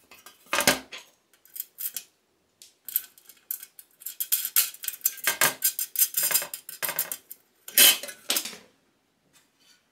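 Small metal screws and washers clinking and rattling against a sheet-metal jigsaw-table plate as they are picked up and fitted into its mounting holes, in irregular bursts, with a heavier knock about half a second in.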